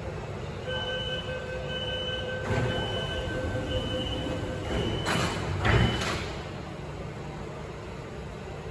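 Subway door-closing warning beeping about once a second over a steady tone, then the platform screen doors and train doors sliding shut with thuds, the loudest a little before six seconds in, over the low hum of the train at the platform.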